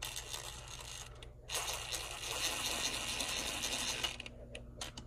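An impact gun with a long hex bit running a black steel gallery gasket bolt in at the engine's timing cover. The gun starts about a second and a half in, runs for about two and a half seconds and stops sharply once the bolt is seated.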